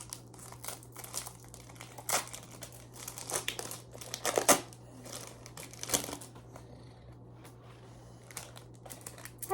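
Foil wrappers of Japanese Pokémon card booster packs crinkling in the hands as they are opened, in irregular rustles with a few sharper crackles around the middle.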